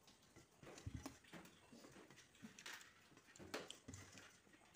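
Faint eating sounds: a swallow from a steel cup and chewing, with a few scattered soft clicks.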